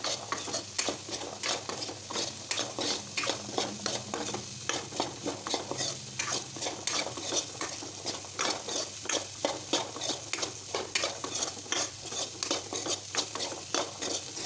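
Boiled chickpeas being stirred and scraped around a hot kadhai in oil and masala, in quick, repeated strokes, with a frying sizzle underneath.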